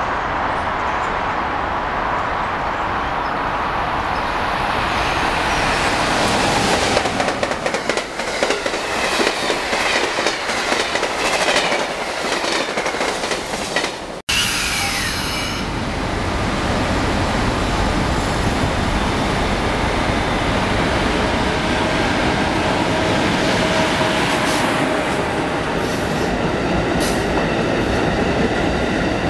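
Electric passenger train approaching and passing close by, its wheels clicking over rail joints. After a sudden cut, an Amtrak Acela Express trainset rolls past steadily, with a brief high squeal at the start and more wheel clicks near the end.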